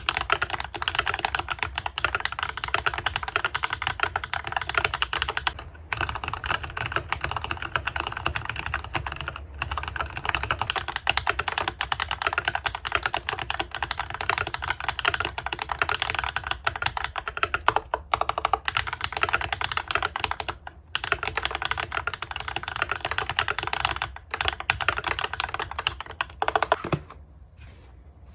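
Fast, continuous typing on a Keychron K8 mechanical keyboard fitted with Akko V3 Pro Cream Blue tactile switches: a dense stream of key clacks with a few short pauses, stopping shortly before the end.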